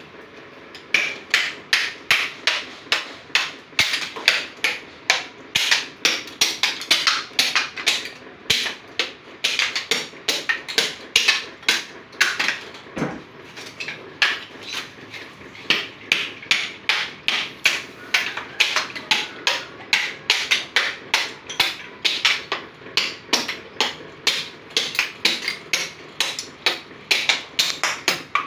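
A small hand axe repeatedly striking the hard shell of a mature coconut to chip it off the meat. The sharp knocks come steadily, about two to three a second.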